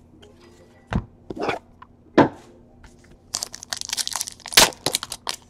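A few soft clicks of trading cards being handled, then from about three seconds in a foil trading-card pack crinkling as it is torn open, with one louder tear or snap near the end.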